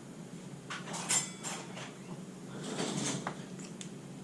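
A few short crinkles and clicks from snack packaging being handled, clustered about a second in and again around three seconds in.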